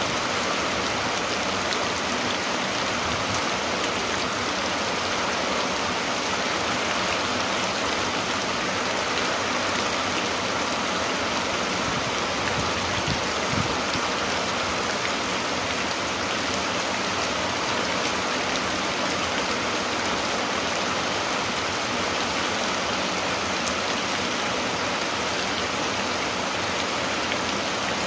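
Steady rain falling, an even hiss of drops that goes on without a break.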